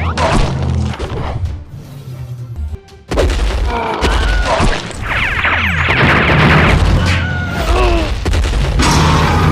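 Cartoon fight soundtrack: background music with a low bass line under booms and crashes. There is a loud, shrill sound effect from about five to six and a half seconds in.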